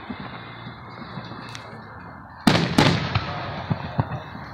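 Aerial firework shells bursting: a faint crack about a third of the way in, then two loud bangs about a third of a second apart past the middle, their sound dying away slowly.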